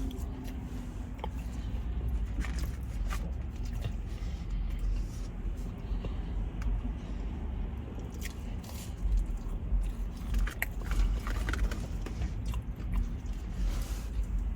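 A person biting and chewing food close to the microphone, with wet mouth sounds and small crunching clicks, more of them around ten to twelve seconds in.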